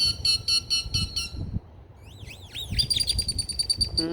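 A songbird singing: a run of about eight quick, evenly spaced chirps, then after a short pause a few sweeping notes that run into a fast, high trill.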